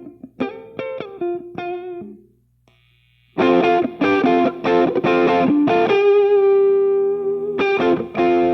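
Electric guitar played through a Saphue overdrive pedal and an amp simulator: a few single notes picked, a short pause, then loud distorted chords struck in short stabs, one of them left ringing for about a second and a half.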